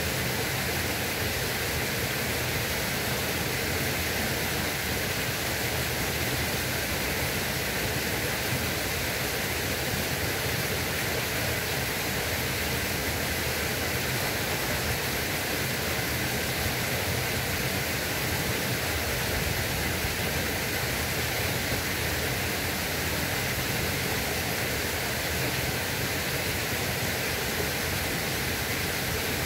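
Steady rushing of flowing water, an even hiss that holds the same level throughout.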